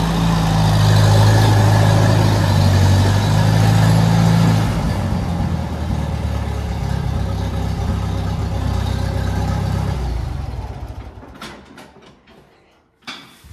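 Farmall 300 tractor engine running as the tractor pulls in. It drops to a quieter idle about five seconds in, then is shut off and dies away about eleven seconds in. A couple of short knocks follow near the end.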